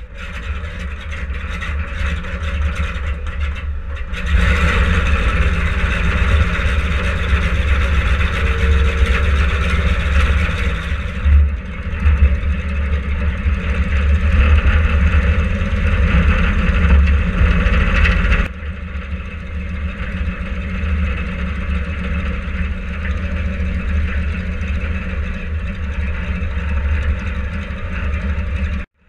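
Yak-52's nine-cylinder radial engine running on the ground, loud and steady. Power comes up about four seconds in, eases back about eighteen seconds in, and the sound cuts off suddenly near the end.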